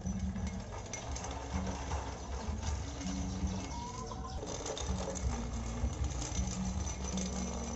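Small electric motors and plastic gearboxes of remote-control construction toys whirring steadily as an RC dump truck tows an RC road roller on a cord. A faint rising whine comes in briefly around the middle.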